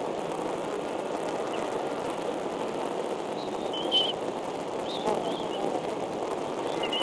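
A steady outdoor hiss from the nest-cam microphone, with a few short, high bird chirps: one faint one early, a cluster about four seconds in, and another around five seconds in.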